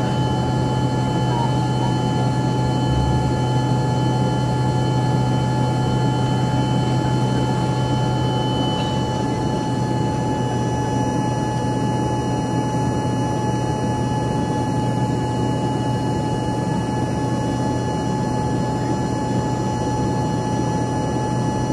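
Steady cabin drone of an Embraer ERJ-145 in its climb after takeoff, from its two rear-mounted Rolls-Royce AE 3007 turbofans. It is a constant low hum with a steady whine above it, unchanging throughout.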